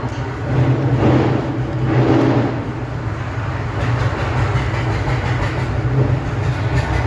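Hot-air rework station blowing, a steady rush of air over a low hum, as the reballed RAM chip is heated onto the phone's board.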